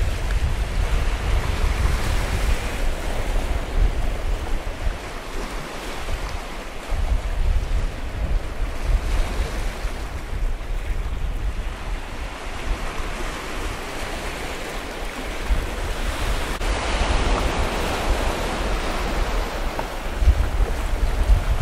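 Sea waves breaking and washing over a rocky shore, with wind buffeting the microphone in a low rumble. The surf grows louder in the last few seconds.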